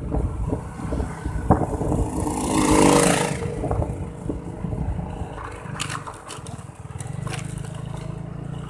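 Yamaha Mio Sporty scooter's single-cylinder engine running at low speed, with wind buffeting the microphone. A loud rushing swell rises and fades about three seconds in, and near the end the engine settles to a steady low hum as the scooter slows.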